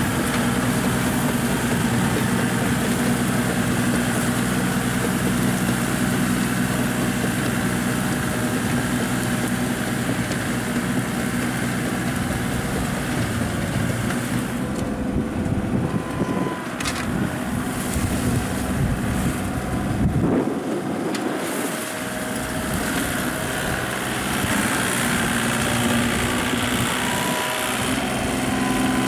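Small Kubota tractor's diesel engine running steadily under load as it tills a muddy, flooded rice paddy.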